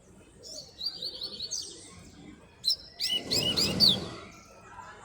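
Double-collared seedeater (coleiro) singing: two song phrases of quick repeated whistled notes, the second, about three seconds in, louder and more varied.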